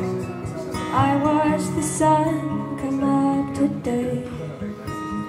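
A woman singing to her own strummed acoustic guitar. The vocal line comes in about a second in and breaks off near the four-second mark, while the guitar chords carry on.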